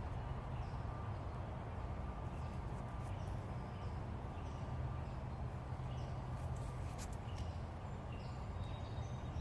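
Steady low rumble with faint, short bird chirps scattered throughout, and a couple of sharp clicks about seven seconds in.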